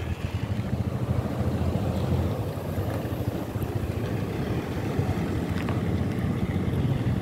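Steady low rumble of a vehicle driving along the road, with wind noise over it.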